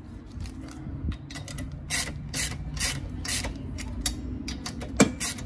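Rear brake rotor scraping against the parking-brake shoes inside its hat as it is worked loose, a run of rasping strokes, a sign that the handbrake shoes are catching on the rotor. A sharp knock near the end is the loudest sound.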